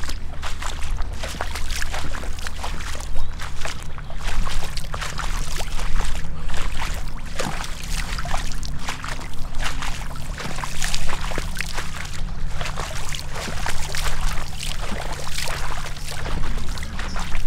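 Two people in gumboots wading through shallow floodwater, a continuous irregular run of sloshing, splashing steps with water pouring off the boots.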